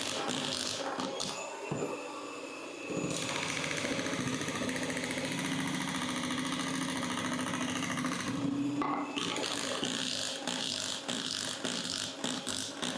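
Electric mixer running, whipping an egg-and-sugar cake batter in a bowl. Its motor note changes a little about three seconds in and again near nine seconds.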